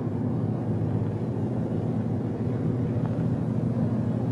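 Lockheed P-38 Lightning's engines running, a steady low drone that does not change.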